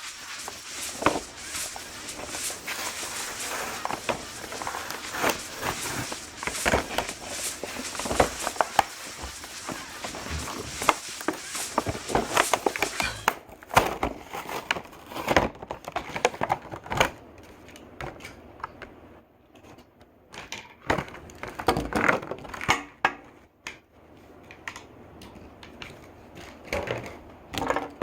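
Toy monster truck packaging being opened by hand: dense crinkling and crackling of plastic and cardboard for about the first half, then scattered clicks and knocks as the trucks are freed.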